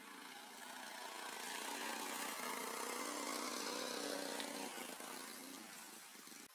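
A small engine running steadily, growing louder over the first couple of seconds, then fading and cutting off suddenly at the end.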